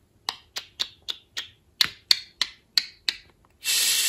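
Budgerigar making a run of about ten sharp clicks, roughly three a second, each dropping quickly in pitch, followed by a brief hiss near the end.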